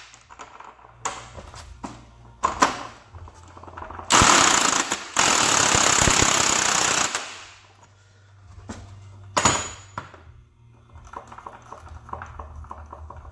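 A power impact wrench hammering in a short burst, then a longer one of about two seconds, on a transmission fastener. Sharp metal clanks of tools and parts come before and after.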